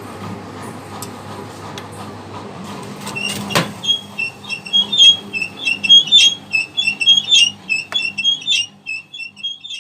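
A steady machine hum, then a single click about three and a half seconds in, followed by an appliance's electronic buzzer playing a quick tune of short beeps at a few pitches.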